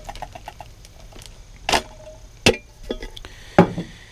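The last of a can of sweet potatoes in syrup plops into a plastic zip-top bag of oats, then the metal can gives a few sharp knocks as it is handled and set down on the truck's plastic bed liner. The loudest knock comes about two and a half seconds in.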